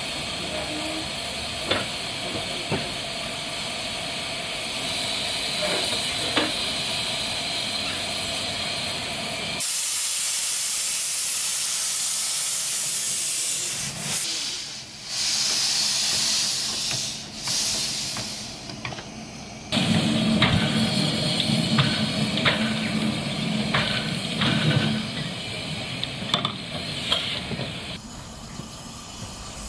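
Steam hissing from the Romney, Hythe and Dymchurch Railway's 15-inch gauge steam locomotive Northern Chief as it stands on the turntable. The hiss changes abruptly in loudness and tone several times, with a brighter, higher hiss for a few seconds in the middle and scattered clicks and knocks in the later part.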